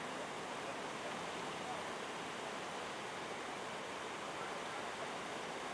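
Floodwater rushing and spilling over an edge: a steady, unbroken noise of running water.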